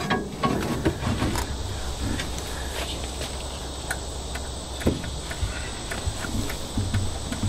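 A steady, high-pitched insect drone with scattered light clicks and one louder knock about five seconds in.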